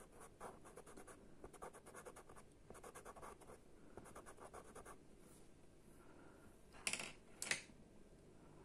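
Faint scratching of a pastel pencil in quick short strokes on pastel card (Pastelmat) for the first five seconds. It is followed near the end by two short, louder clicks.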